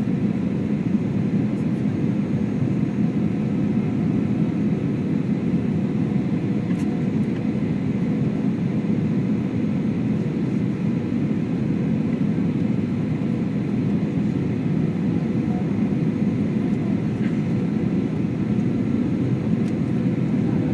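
Steady cabin noise of a jet airliner on final approach: low, even engine and airflow noise with a faint steady hum.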